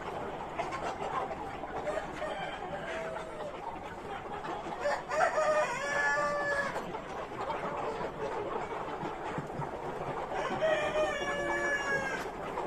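A flock of Sonali chickens clucking, with a rooster crowing twice: once about five seconds in and again near the end.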